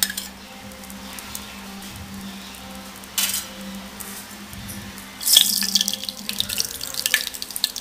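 Hot oil sizzling in a kadhai, breaking into loud crackling and spattering about five seconds in as mustard seeds hit the oil.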